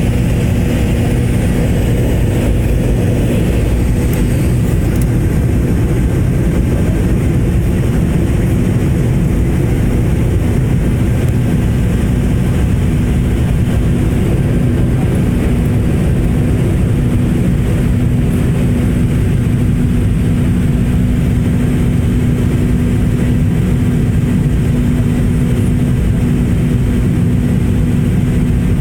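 Airliner engine noise heard inside the passenger cabin: a loud, steady low rumble with a constant hum running through it.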